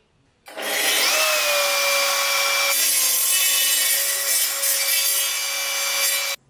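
Table saw running with a steady blade whine while it cuts through a block of wood on a crosscut sled. The sound starts and stops abruptly, and the hiss grows brighter about a third of the way in.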